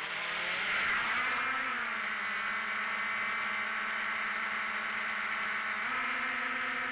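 Quadcopter's electric motors and propellers buzzing close to its on-board camera as it lifts off from grass and climbs. The pitch rises a little about a second and a half in, holds steady, and rises again near the end as the throttle changes.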